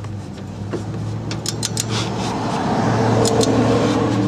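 Click-type torque wrench tightening a hub assembly bolt to 72.5 ft-lb: a quick run of three sharp clicks about a second and a half in, then two more near three and a half seconds, the wrench signalling that set torque is reached. Under them is a steady low hum and a swelling rush of noise.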